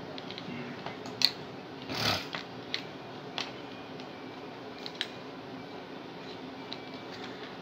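Insulated wires being pushed and pulled through a small plastic meter enclosure: scattered clicks and rustles, the sharpest about a second in, and a short scraping rustle about two seconds in.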